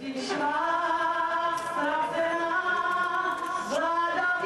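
Voices singing a slow melody in long held notes, rising in pitch near the end.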